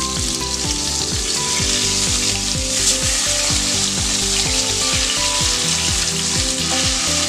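Pieces of turmeric-and-salt-marinated bhola fish frying in hot mustard oil in a kadai, with a steady loud sizzle. Background music with a regular beat plays underneath.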